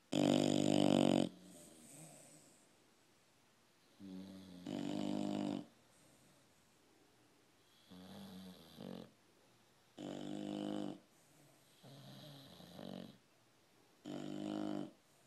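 English bulldogs snoring in their sleep: a loud snore at the start, then a run of snores about every two seconds, each about a second long with quiet between.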